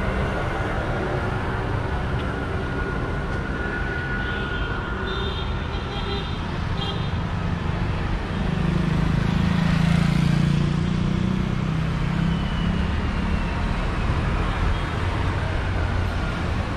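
Street traffic: two-wheeler engines running as scooters and motorbikes pass on the road, over a steady road hum. A louder engine drone swells from about eight seconds in and fades a few seconds later as one passes close by.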